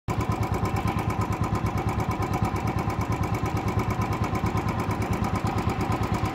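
Motorcycle engine running steadily at low road speed, with a quick, even beat of several pulses a second.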